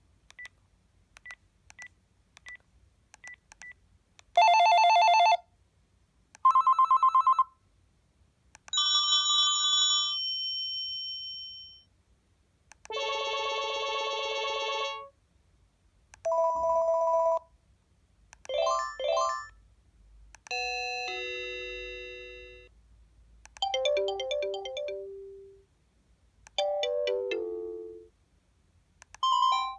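Panasonic KX-TGH720 cordless phone handset playing through its ringtones one after another. Each is a short electronic sample a second to three seconds long, with brief pauses between, going from plain ring tones to short melodies. It opens with six faint short beeps.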